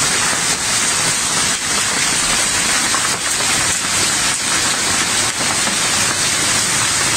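Torrential rain pouring down on a canvas awning and a flooded street: a loud, steady, dense hiss with scattered sharper patters of impacts.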